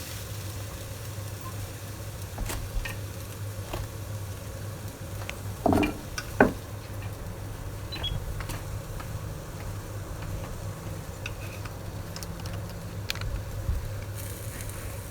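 A metal spoon scraping and knocking as fried mushrooms are spooned out of a cast iron frying pan, with two louder clinks about six seconds in. A steady low hum runs underneath.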